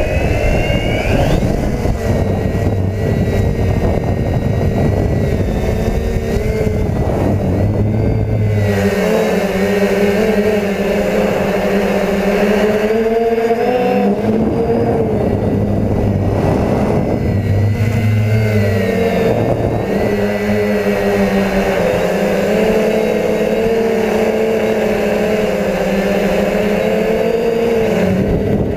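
DJI F450 quadcopter's electric motors and propellers, heard close from the onboard camera, with a buzzing hum that climbs in pitch as the motors spool up for takeoff at the start. The pitch then wavers up and down as the throttle changes in flight.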